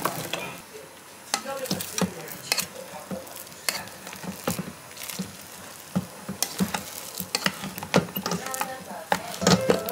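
Stovetop cooking: a utensil clicking and scraping irregularly against a pot or pan over a light sizzle.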